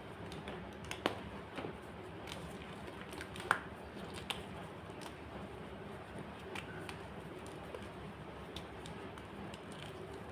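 White gym chalk crunching: scattered sharp crackles and snaps at irregular intervals, the loudest about a second in and about three and a half seconds in, over a steady low background.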